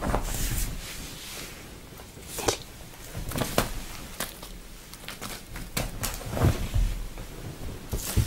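A cat pouncing and scrabbling on a fabric sofa cushion while batting at a toy, with irregular soft thumps and rustles of paws on cloth.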